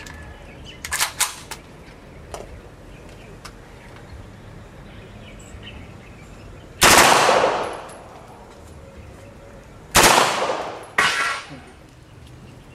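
MKE MP5 submachine gun fired semi-automatically: one loud shot about seven seconds in, then two more about a second apart near the end, each trailing off in an echo. Three fainter sharp cracks come about a second in.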